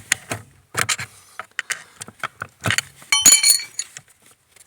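Flat screwdriver prying a splined steering-shaft coupling off its splines: a run of sharp metal clicks and knocks, loudest a ringing metallic clink about three seconds in.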